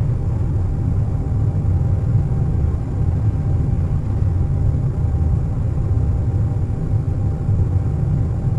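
Steady low rumble of an airliner cabin in cruise, engine and airflow noise, with a faint steady tone above it.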